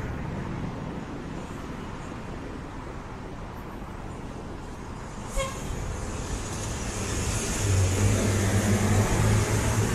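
Street traffic at a city intersection: cars passing steadily, with a short, sharp pitched beep about five seconds in. Over the last few seconds a vehicle engine's low drone builds up and gets louder.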